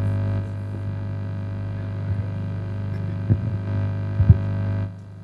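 Steady electrical mains hum through the microphone's sound system, with a few soft thumps as the handheld microphone is handled. The hum drops away about five seconds in.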